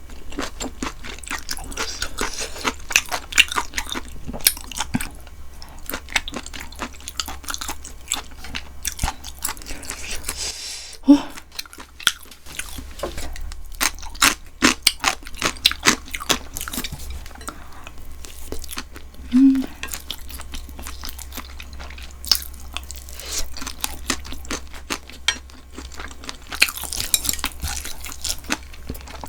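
Close-miked chewing and biting of beef gopchang (small intestine) in tteokbokki: a constant run of wet mouth clicks and crunches.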